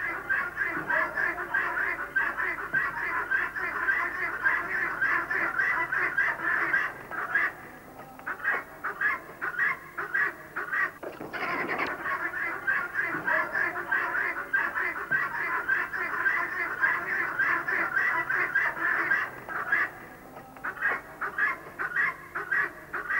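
A flock of farmyard fowl calling in a dense, rapid chatter of short honking calls. The calls thin out briefly about a third of the way in and again near the end.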